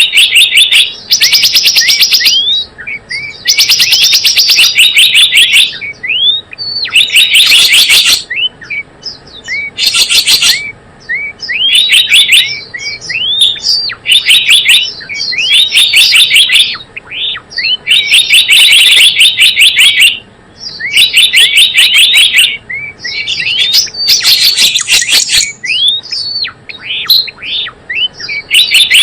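Lure recording of gelatik bloong birdsong: loud runs of rapid, sharp chirps, each run a second or two long, alternating with short rising notes, repeating again and again.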